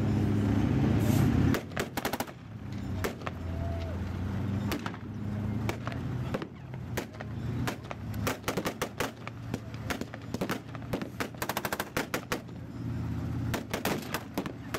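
Small-arms fire from a WWII battle re-enactment: scattered rifle shots and short machine-gun bursts, one fast burst near the end. A heavy vehicle engine runs loudly at first and drops away about a second and a half in.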